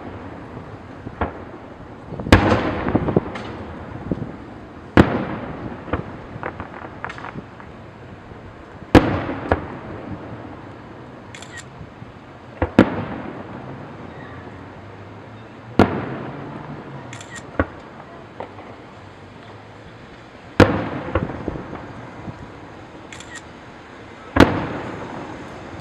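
Aerial fireworks display: shells bursting with loud bangs every three to four seconds, each trailing off in an echoing rumble, with smaller pops and crackling between the big bursts.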